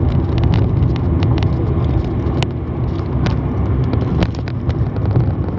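Car interior noise while driving: a steady low rumble of road and engine. Many short clicks and knocks sit on top of it.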